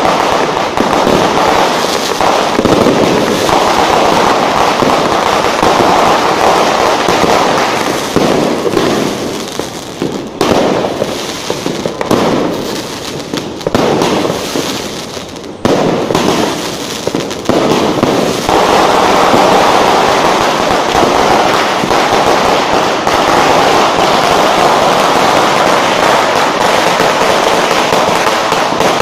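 Firecrackers and fireworks going off in a dense, continuous rattle of bangs. In the middle the rattle thins to separate bangs, then from about two-thirds of the way in it runs as one unbroken barrage.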